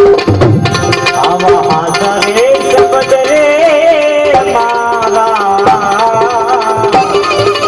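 Live Indian devotional folk music: tabla strokes under a held harmonium note and a winding melody from a keyed Indian banjo (bulbul tarang), the drumming busiest in the first second before the melody takes over.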